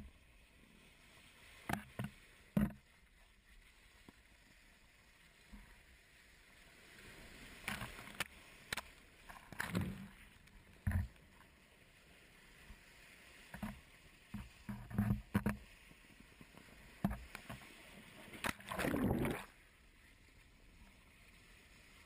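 Sea water sloshing and splashing in irregular short bursts at the shoreline where lava pours into the surf, the longest splash lasting about a second near the end.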